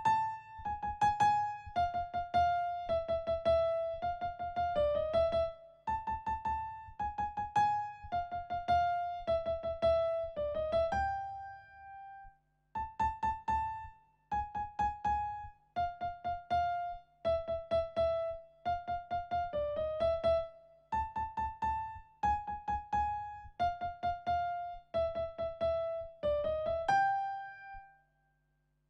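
Digital keyboard played with one hand in a piano tone: a fast, repeating figure of short notes, the phrase played twice with a brief pause about halfway, stopping shortly before the end.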